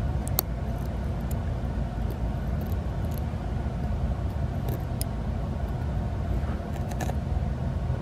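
A steady low rumble, with a few light clicks as metal tweezers pick tangled hair out of the end of a Roomba's debris-extractor roller.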